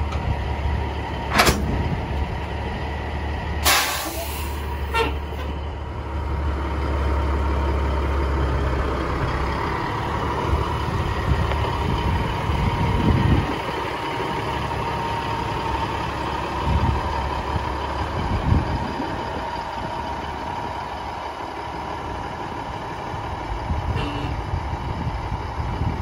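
Peterbilt semi truck's diesel engine running as it pulls a grain hopper trailer past and away on gravel, the low rumble strongest for the first ten seconds or so and then easing. A few short, sharp hisses in the first five seconds.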